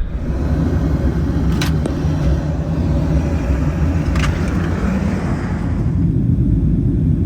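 Steady low rumble of airliner cabin noise aboard a Boeing 737-800 in flight, with two short clicks about one and a half and four seconds in.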